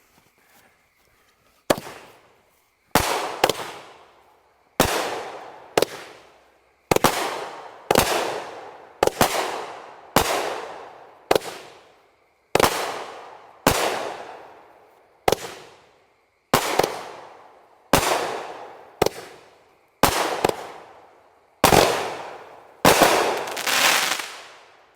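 A 200-gram consumer firework cake firing about twenty shots, roughly one a second. Each shot is a sharp bang that trails off over about a second, and a longer crackle comes near the end.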